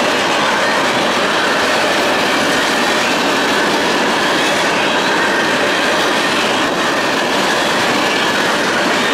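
Cars of a mixed CSX freight train rolling past on the rails: a steady, loud noise of steel wheels running over the track.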